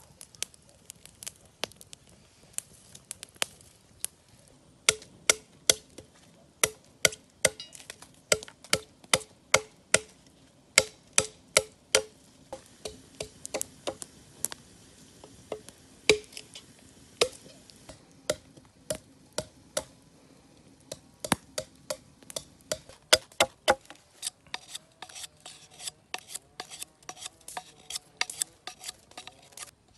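Large knife chopping, a run of sharp knocks about one or two a second, thinning out near the end.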